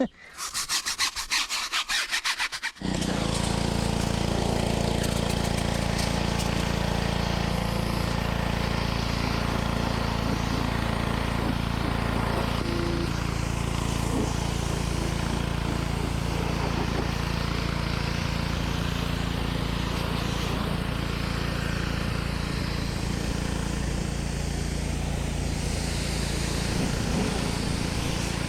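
About three seconds of rapid scrubbing strokes. Then a motor starts and runs steadily with a low, even hum.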